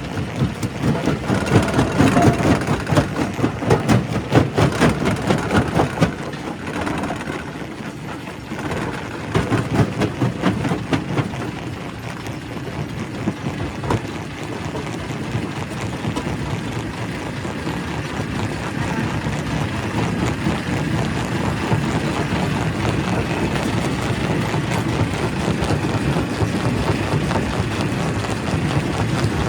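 Primary rock crusher at a quarry working: a steady heavy machine drone under a dense, continuous clatter and cracking of stone being broken. The crushing is heavier and more uneven for about the first ten seconds, then settles into a steadier, even grind.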